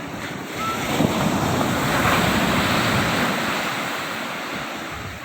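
Sea waves breaking and washing up the beach: the rush swells about a second in and then slowly dies away.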